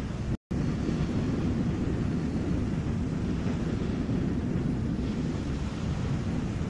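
Steady low rumble of wind on the microphone over the wash of small waves at the shoreline. The sound cuts out completely for a split second about half a second in.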